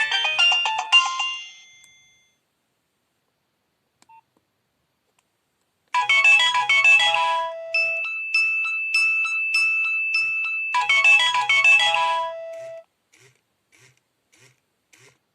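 Nokia 6030 ringtones: one melody fades out in the first two seconds, then after a few seconds of silence another starts with a quick run of bright notes, holds a long high note with short notes over it, repeats the opening run and stops abruptly. A few faint clicks follow.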